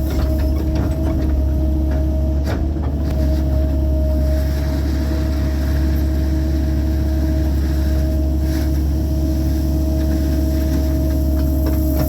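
Cat 308 mini excavator's diesel engine running steadily under work, with a constant whine over its low hum and a sharp knock about two and a half seconds in.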